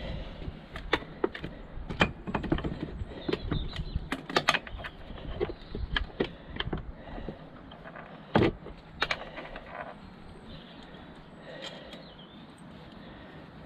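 Irregular metallic clicks and knocks of hand tools and parts being worked on an outboard motor's powerhead casing, with one louder knock about eight seconds in, thinning out to a few faint ticks near the end.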